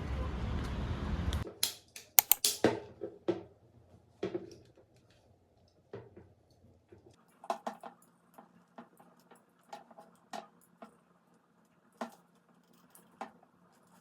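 A steady low rumbling noise cuts off suddenly about a second and a half in, followed by a quick cluster of sharp clicks and knocks, then scattered light clicks and clinks over a faint steady hum.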